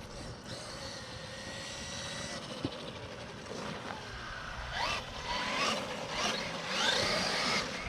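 Electric motor of a Traxxas RC car whining steadily, then revving up in rising sweeps from about five seconds in.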